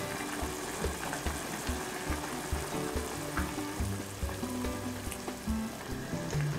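Pork curry bubbling and simmering in a frying pan as it is stirred with a silicone spoon, under background music with a steady beat.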